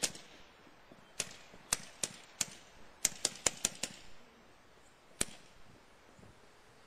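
Guns firing in a string of about ten sharp shots, irregularly spaced, with a rapid cluster of five around three seconds in and a last single shot after five seconds.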